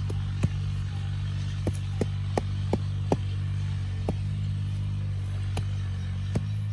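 Short-handled hand hoe chopping into hard, dry soil: about ten sharp strikes at uneven intervals, some in quick succession. Under them runs a steady low engine-like drone.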